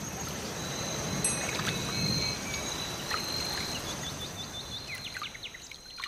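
Water pouring from above into a glass aquarium, splashing steadily onto the tank's water surface. A few faint high chirps come in near the end.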